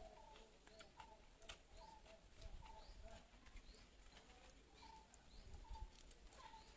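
Faint bird calling in short, evenly repeated chirps, about two a second, with a few faint clicks.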